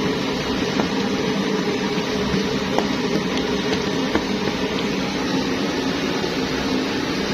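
Pressurised kerosene primus stove burning with a steady rushing noise, with a few faint ticks.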